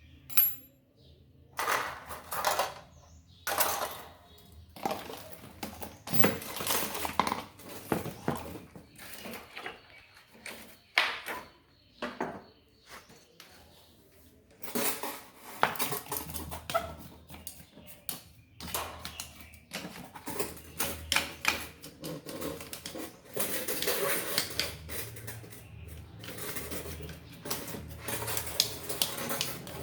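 Irregular clinks, taps and knocks of small metal parts and tools being handled, mixed with stretches of scraping and rubbing, as an electric fan's motor and shaft are worked on by hand.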